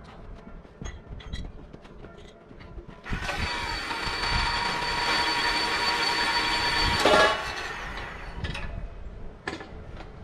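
Electric band saw cutting through an aluminium tube: a few seconds of light clicks and handling, then the saw runs steadily with a high whine from about three seconds in, ends in a loud clack about seven seconds in, and fades out over the next second.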